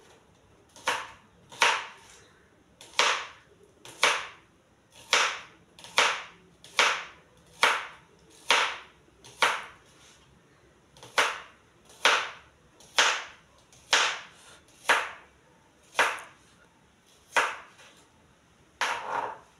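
Kitchen knife chopping vegetables on a plastic cutting board: single sharp knocks at a slow, even pace of about one a second, with a short pause about halfway.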